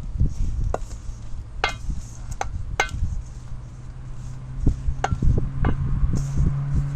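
Wooden spatula stirring and knocking in a mixing bowl as hot water is worked into a stiff tapioca-flour dough: irregular knocks and scrapes, with a few sharper clinks against the bowl.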